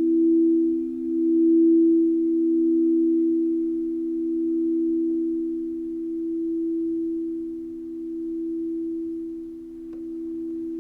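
Crystal singing bowls ringing on after being played: two pure, steady tones a few notes apart that swell and fade slowly as they blend, with a faint tap near the end.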